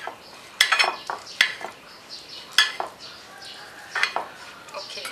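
Kitchen knife slicing cooked red pork on a plate, the blade clicking and scraping against the plate at irregular intervals, about once a second.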